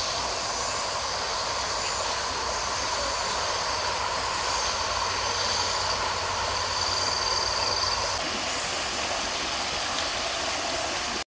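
Steady rush of river water pouring over a low weir and through small rapids.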